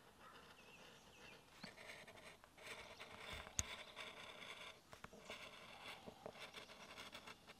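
Multitool knife blade drawn through thick leather in a series of short cutting strokes, each a faint scratchy rasp lasting about a second, with one sharp tick about three and a half seconds in.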